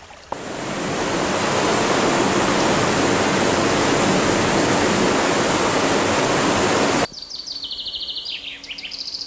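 Rushing water, like a waterfall or rapids, fades in and runs steadily, then cuts off suddenly about seven seconds in. A songbird then sings fast runs of repeated high chirps and trills, with a few falling notes near the end.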